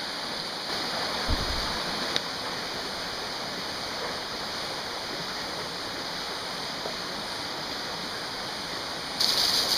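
Steady rush of a shallow mountain river flowing over rocks, with a brief low thump about a second in. Near the end the water noise jumps louder and brighter.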